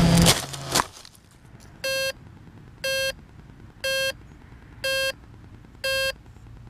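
A quadcopter's motors cut out right at the start and a knock follows; the downed quad then beeps five times, short even beeps about a second apart, the lost-model alarm that signals where it lies.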